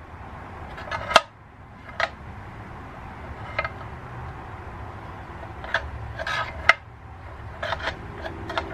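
Scattered sharp metallic clinks and knocks from a car hood hinge, its spring removed, being moved and handled by hand, over a low steady hum.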